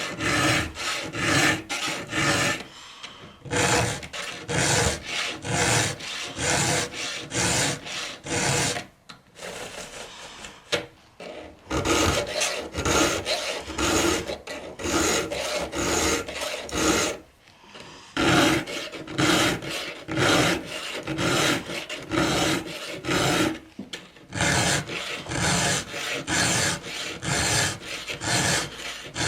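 Hand-held round file rasping across chainsaw chain cutters in sharpening strokes, about two a second. The strokes come in runs broken by short pauses.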